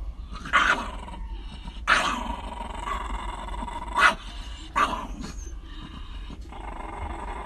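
Two Shiba Inu-type dogs squabbling: four sharp barks, with steady growling between them.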